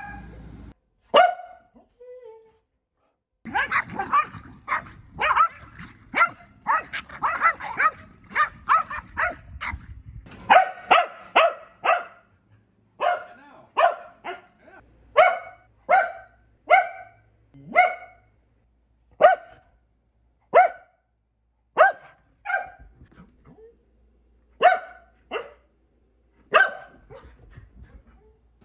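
Keeshond barking over and over: a fast run of barks for several seconds, then sharp single barks spaced about a second apart.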